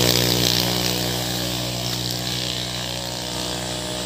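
A motor engine drones steadily at a constant pitch and slowly fades.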